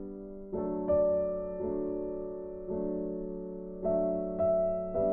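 Background music: gentle piano chords, each struck and left to fade, about one a second.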